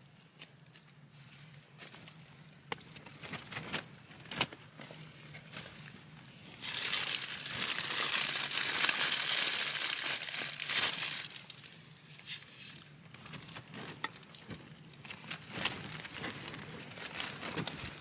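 Thin plastic bag crinkling and rustling as a hand rummages in it. Scattered small crackles at first, then a loud continuous crumpling for about four seconds in the middle, easing back to lighter rustles.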